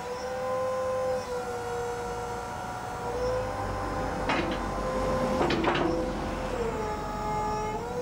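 Salvaged forklift electric motor and hydraulic pump of a homemade mini skid steer whining steadily as the loader arms and bucket move, the pitch sagging for a moment each time the load changes. Two short rattling clanks come in the middle.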